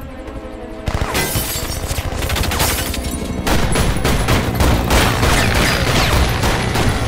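Film action soundtrack: rapid volleys of gunfire starting about a second in and growing denser, over a heavy low rumble and music score.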